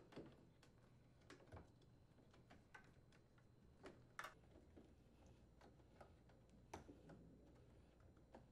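Near silence with faint, irregular light clicks and taps, the loudest about four seconds in, as hands work a washer's rubber door boot seal onto the metal lip of the front panel.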